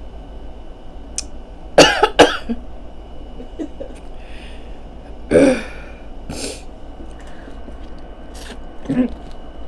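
A woman coughing in short fits: two sharp coughs close together about two seconds in, more around the middle and near the end. She is choking on sauce that she breathed in while sucking the juice from a piece of seafood-boil corn on the cob.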